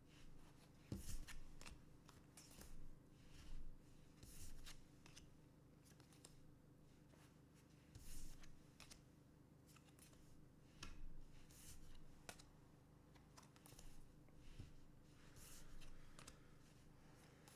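Quiet handling of trading cards: short scuffs, slides and clicks of cards and packaging coming every second or so, over a faint steady low hum.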